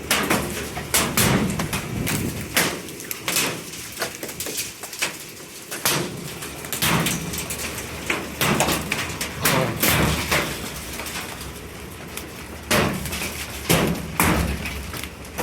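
Quarter-size hailstones striking metal surfaces with loud, irregular bangs, a dozen or more scattered through, over a steady hiss of falling hail and rain.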